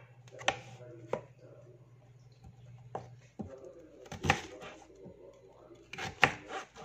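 Kitchen knife chopping on a cutting board: a few sharp, unevenly spaced knocks of the blade, first through zucchini slices and then through a raw potato being halved, the loudest knock about four seconds in. A low steady hum runs under the first half and stops about halfway through.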